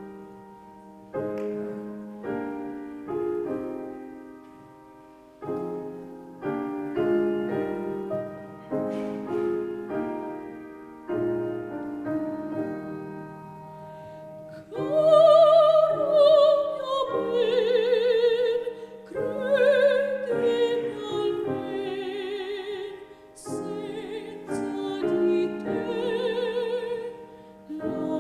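Piano playing an introduction of struck chords; about halfway through, a woman's operatic voice enters, singing sustained notes with wide vibrato over the piano accompaniment.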